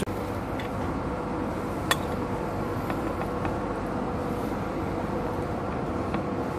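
Steady city traffic noise with a faint constant hum, and one sharp clink of a metal spoon against the plate about two seconds in, with a few fainter taps later.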